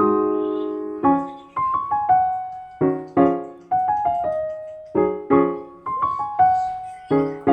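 Background music: a solo piano melody, notes struck one by one or in small clusters and left to ring and fade.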